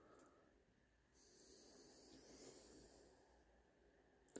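Near silence, with a faint soft hiss lasting about two seconds in the middle.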